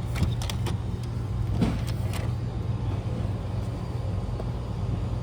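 Steady low hum of a car interior, with a few short clicks and knocks in the first couple of seconds.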